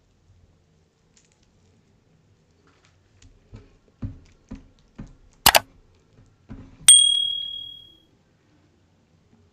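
Tableware being handled and set down: several soft knocks, a sharp clack, then a clear ding that rings out and fades over about a second.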